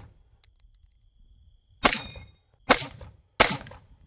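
Q Sugar Weasel AR-15 rifle in 5.56 firing three shots, the first just under two seconds in, then one about every three-quarters of a second, in a timed drill on steel targets. A faint ring of struck steel hangs on early on.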